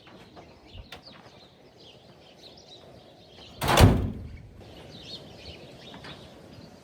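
An old farm truck's door shut once with a heavy thud, about three and a half seconds in. Faint birds chirp throughout.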